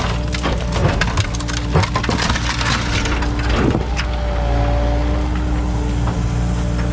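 Kubota KX080 excavator's diesel engine running steadily as its bucket tears down the pool wall and coping, with a run of cracking and crunching of breaking debris from about half a second in to about four seconds.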